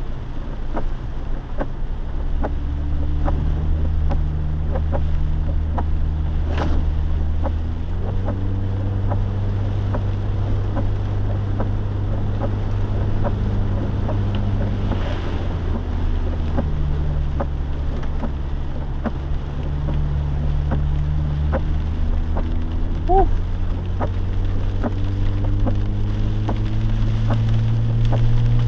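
Jeep engine and road noise heard inside the cabin while driving, the engine's hum stepping in pitch several times as speed or gear changes, with light ticking throughout.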